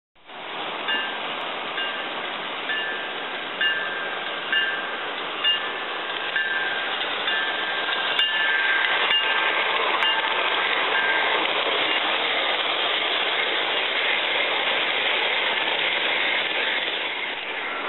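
A passing train's steady rushing noise, with a bell dinging about once a second that fades out about two-thirds of the way through.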